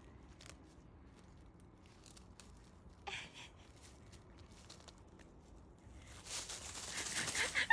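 Faint crunching and rustling of footsteps in dry leaves and brush, with scattered light cracks, growing louder in the last couple of seconds.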